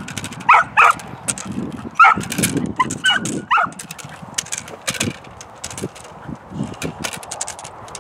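Malinois puppy giving a quick string of short, high yips and barks in the first four seconds while lunging on the leash at a bite pillow. Sharp clicks and scrapes run through, and after the yips stop they are the main sound.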